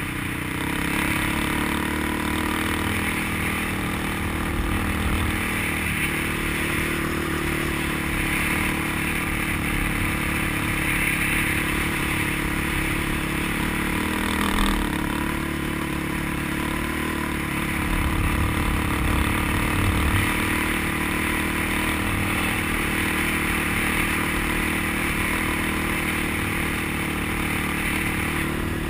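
ATV engine running steadily under way over sand, heard from a helmet-mounted camera with wind rumbling on the microphone.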